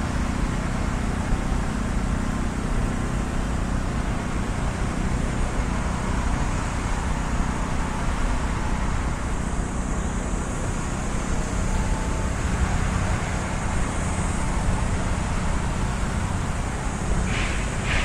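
Steady hum of road traffic, an even wash of noise that does not change through the stretch. Near the end there are two short high sounds.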